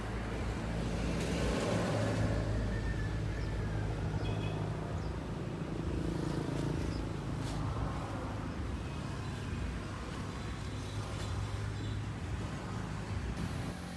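An engine running steadily with a low, even hum, and a few faint clicks over it.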